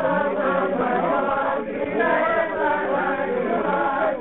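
A group of voices singing together, several overlapping pitches at once, with a brief drop about one and a half seconds in.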